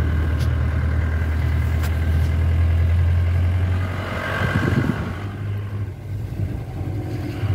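A road vehicle's engine droning steadily, heard from inside the cabin while driving, with a brief busier patch of sound about halfway through.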